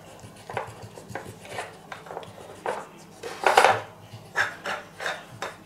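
Plastic parts of a Trixie Flip Board dog puzzle clicking and knocking as a French Bulldog noses at it. The clacks come irregularly, with a louder cluster about three and a half seconds in.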